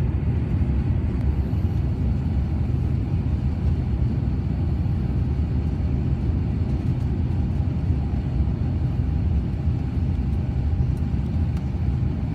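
Steady low rumble of cabin noise inside an Airbus A350-900 airliner: engine and airflow noise, even and unchanging, with a faint steady hum above it.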